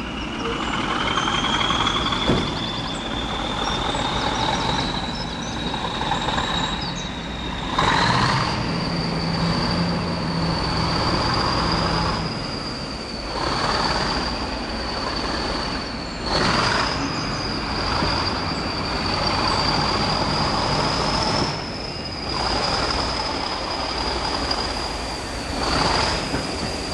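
Diesel locomotive thrashing at full power at the head of a passenger train, heard from an open coach window behind it. A high whistle rises over the first several seconds and then holds steady above the train's running noise, which swells and fades every few seconds.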